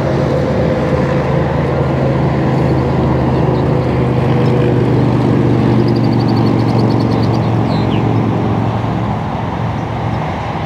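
An engine running close by, with a steady low hum that builds and then eases off near the end. A brief run of fast, faint ticking comes in about two thirds of the way through.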